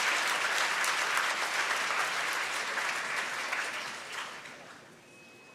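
Crowd applauding and cheering, many quick claps, fading out in the last couple of seconds.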